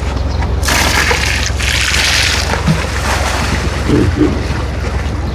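Water gushing and splashing for about two seconds, over a steady low engine hum, as fish are released into the pond.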